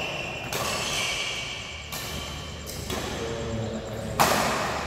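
Badminton rally: rackets hitting the shuttlecock about four times, the loudest hit near the end, with shoes squeaking on the court floor between strokes.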